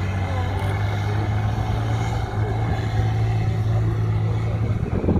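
A competition trial truck's engine running steadily at a low, even pitch, easing away shortly before the end.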